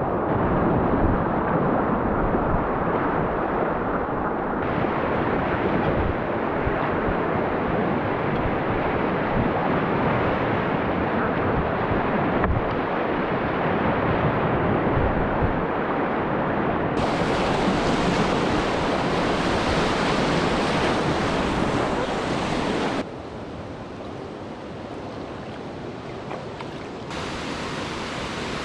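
Rushing whitewater of a swollen mountain river's rapids, a loud steady wash of water noise. Its level and tone change abruptly several times, dropping noticeably about two thirds of the way through.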